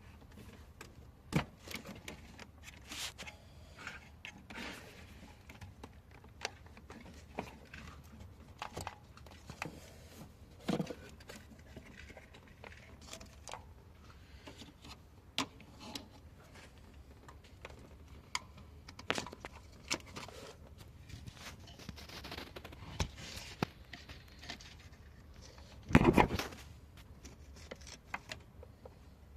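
Hand tools and parts clicking and knocking at irregular intervals, with a louder clatter near the end.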